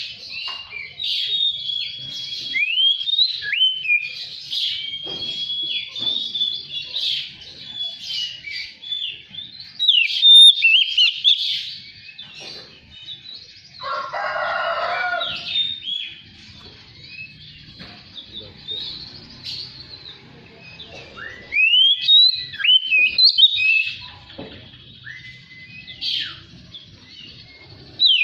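Oriental magpie-robin (kacer) singing: a run of varied whistled phrases with quick rising and falling notes, broken by pauses, and a lower, harsher call lasting about two seconds roughly halfway through.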